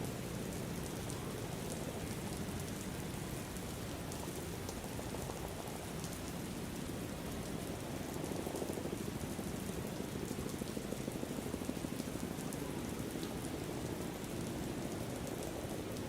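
Steady rain falling, with scattered drops pattering.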